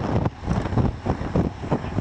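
Wind buffeting the microphone of a bike-mounted action camera on a road bike moving at about 50 km/h: an uneven, gusty low rumble that swells and drops several times a second.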